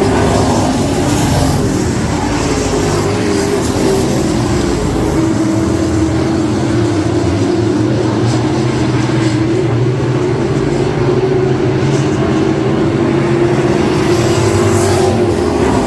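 Race car engine running hard and continuously at high revs, its pitch sagging slowly and then rising again near the end.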